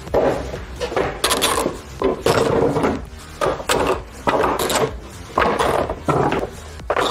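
Plastic side and tank covers of a Bajaj Pulsar NS 200 being handled and worked loose: irregular bursts of plastic rubbing, scraping and knocking, with a tool at a cover fastener.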